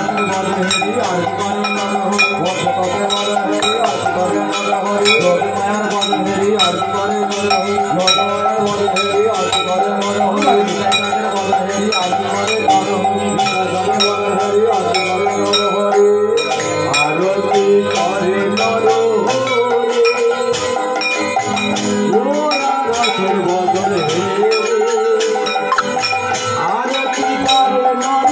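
Aarti worship music: bells and metal percussion struck in a fast, steady rhythm with a barrel drum beating, over held, wavering pitched tones.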